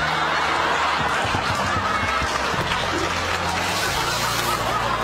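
Studio audience laughing, many voices together.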